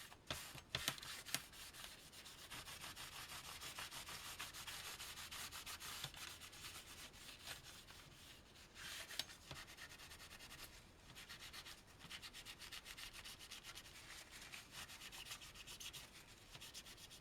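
Faint cloth rubbing in quick short strokes over the ZX Spectrum's casing, wiping off grime. There are a few light knocks in the first second or so.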